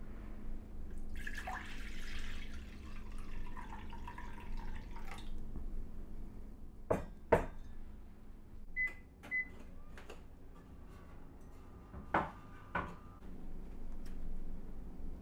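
Liquid poured into a stainless steel saucepan for about four seconds, followed by two sharp knocks, then two short high beeps from an induction hob's controls. Two more knocks come near the end, under a faint steady low hum.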